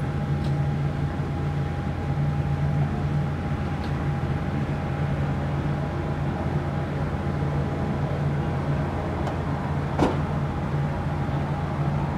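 Saab 340B's twin General Electric CT7-9B turboprop engines running at low taxi power as the aircraft rolls after landing: a steady propeller drone with a steady higher whine over it. A single sharp click about ten seconds in.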